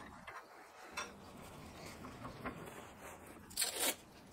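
A few light clicks of a small steel piece handled in a bench vise, then tape pulled off its roll in one short ripping rasp near the end.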